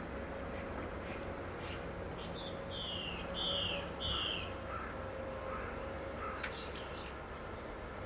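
Wild birds calling: three short falling notes in quick succession about three seconds in, with scattered chirps before and after, over a faint steady hum.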